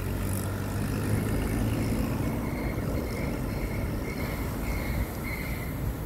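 Street traffic: a motor vehicle engine running with a steady low rumble, with a few faint high chirps repeating through the middle.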